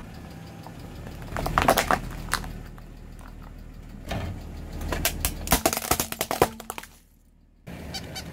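Car tyre rolling over and crushing plastic nesting cups, with a burst of sharp plastic cracks and snaps, then crushing a plastic alarm clock with a longer run of cracking and crunching. After a brief gap near the end, a quick repeating clicking starts.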